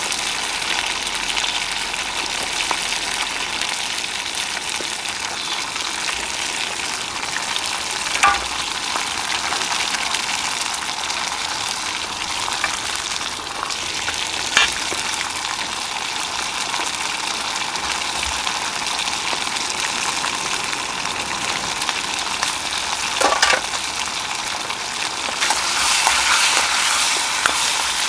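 Food sizzling steadily in an iron wok, with a few sharp clicks of a utensil against the pan and a louder stretch of sizzling near the end.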